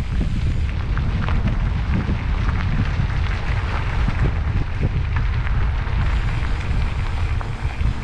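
Mountain bike ride recorded on a GoPro action camera: heavy wind rumble on the microphone with the bike's rolling noise and many scattered small clicks and knocks from the trail.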